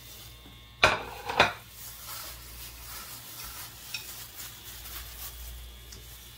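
Gloved hands mixing chopped boiled meat and diced onion in a bowl: crinkling of thin plastic gloves and soft stirring, with two sharp knocks against the bowl about a second in, half a second apart.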